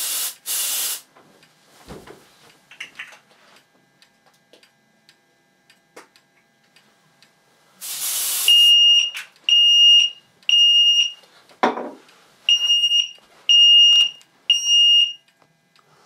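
Aerosol canned smoke sprayed at an optical smoke detector in short hissing bursts, two at the start and one about eight seconds in. The optical smoke detector trips, and the fire alarm sounder goes off in a high-pitched US temporal tone (Code 3): three beeps of about half a second, a pause, then three more.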